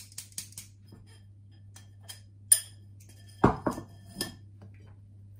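Metal mesh sieve tapping against a glass mixing bowl while flour is sifted into cake batter: a few light ticks and a sharp clink, then a few louder knocks about three and a half seconds in as the sieve and utensils are set against the glass. A steady low hum runs underneath.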